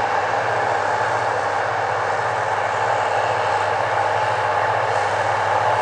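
Massey Ferguson 8570 combine running steadily while harvesting corn: a constant machine drone with a steady mid-pitched whine over a low hum.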